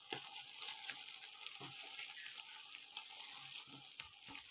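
Faint steady hiss from a large pot of sweet rice on a gas stove, with a few soft taps as sweets are dropped onto the rice.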